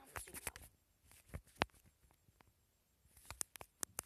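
Irregular sharp clicks and taps very close to the microphone: a cluster at the start, two single clicks a little after a second in, and another cluster near the end.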